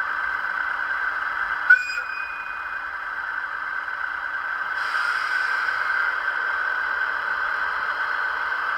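Recorded diesel engine sound of a DF200 locomotive played by an ESU DCC sound decoder through the model's small speaker, steady and thin. A sharp click with a brief tone comes just under two seconds in, and about five seconds in the sound gets louder and brighter.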